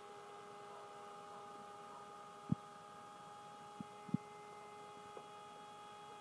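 A steady electrical hum of several fixed tones, broken by a few sharp clicks about two and a half seconds in and twice around four seconds in.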